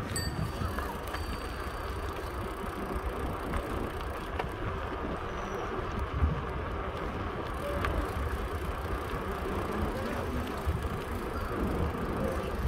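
Steady rolling and wind noise from riding a bicycle down a paved city street, with a few faint clicks and traffic in the background.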